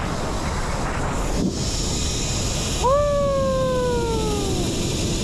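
Steady wind rush on the microphone of a rider flying down a zipline, with one long falling 'whoa' call from the rider about three seconds in.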